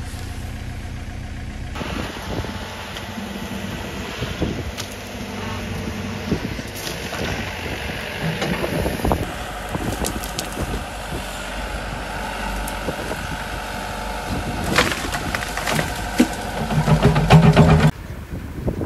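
A digger's engine running while its bucket pushes earth and stones into a trench, with scraping and irregular knocks and clatters of falling soil.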